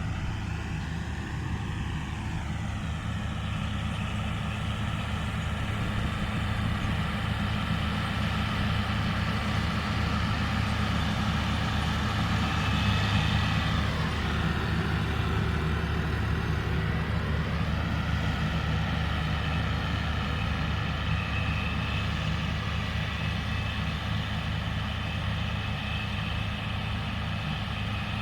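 New Holland CR 960 combine harvester running steadily under load while cutting grain, a deep engine drone under a higher whine. Around the middle the whine dips in pitch and then rises again.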